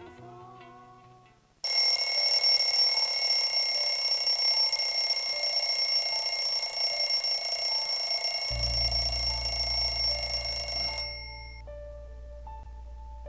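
An alarm rings loudly and without a break for about nine seconds, starting suddenly and cutting off abruptly. A low hum comes in shortly before it stops, and soft music plays at either end.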